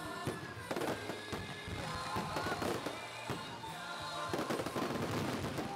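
Fireworks display: aerial shells bursting in quick succession, with many overlapping bangs and crackles, over background music.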